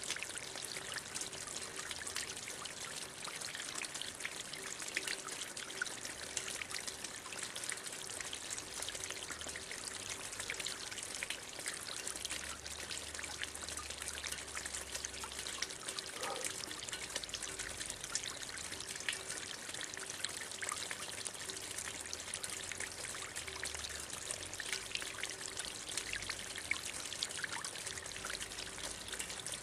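Water jet of a fountain gushing up and splashing back down: a steady, dense patter of small splashes.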